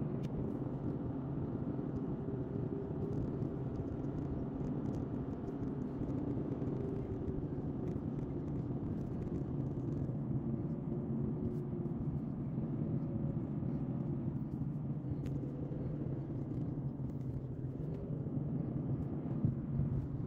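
Steady road and engine noise heard inside the cabin of a car cruising along a highway, a low even hum with no change in pace.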